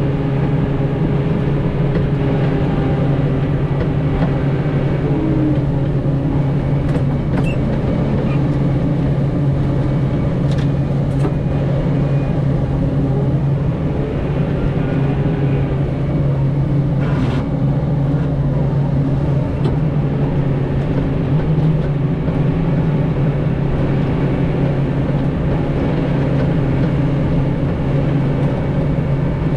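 Tractor engine running steadily, its pitch shifting a little now and then, with a few light clicks over it.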